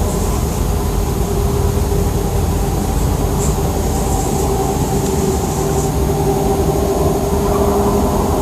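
Steady, low, engine-like drone from an unidentified source, with a few held tones over a dense rumble. It keeps on without change.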